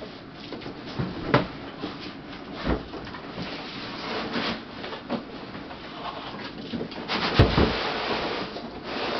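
Handling noises from unpacking a plastic folding table: irregular knocks, bumps and scraping, with sharp knocks about a second and a half in and again near three seconds, and the loudest clatter about seven and a half seconds in.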